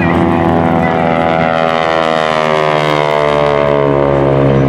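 An SNJ Texan's Pratt & Whitney R-1340 radial engine and propeller at full power, passing close by in a low flyby. The engine note falls steadily in pitch as the plane goes past, then holds at a lower pitch from about three seconds in.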